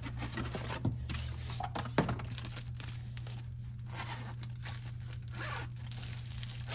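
A taped package being torn open by hand: tape and packaging tearing and crinkling in irregular strokes, with a sharp snap about two seconds in.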